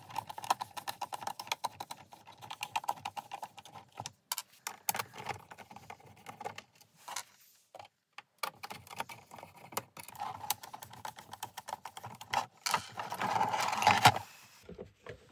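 A hand screwdriver backs screws out of the plastic housing of an LED moving-head light, with dense, fast clicking and light clattering of the plastic case and of small screws set down on the bench. The clicking breaks off briefly about four seconds in and again about halfway through.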